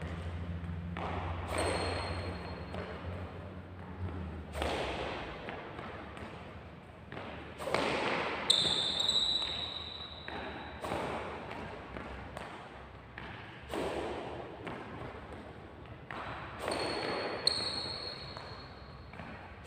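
Rubber-soled court shoes stamping and squeaking on a wooden sports-hall floor during badminton shadow footwork, a lunge landing about every three seconds and echoing in the hall. Sharp high squeaks come about eight seconds in and twice near the end.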